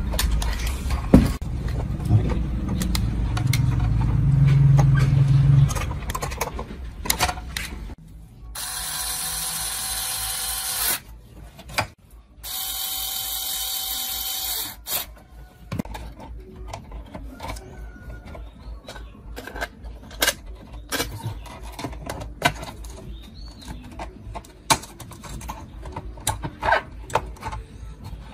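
A cordless drill-driver runs twice, each time for about two and a half seconds, driving screws through a metal bracket into an amplifier chassis. Before that there is a low rumble with knocks, and after it come scattered clicks and knocks of metal parts being handled.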